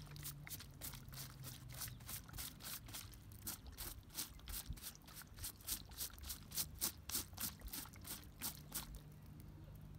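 Stiff-bristled stud-cleaning brush scrubbing the wet sole and studs of a rugby boot in quick back-and-forth strokes, about three a second, stopping about nine seconds in.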